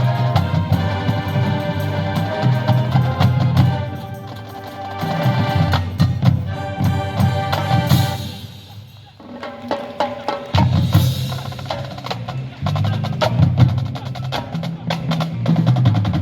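Marching band playing, with sustained low brass chords under busy, sharp clicking percussion. About halfway through the music drops away for a couple of seconds, then comes back in full.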